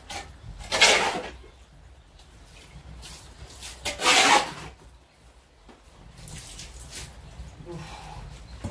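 Metal shovel blade scraping across a wet mud floor, with two loud scrapes about three seconds apart and lighter scraping between them.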